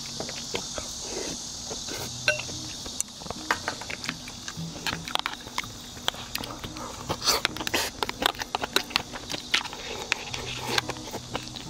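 Spoon and chopsticks clicking and knocking against a bowl during a meal of beef seaweed soup, in many quick light taps. A steady high-pitched hiss stops about three seconds in, and faint music plays underneath.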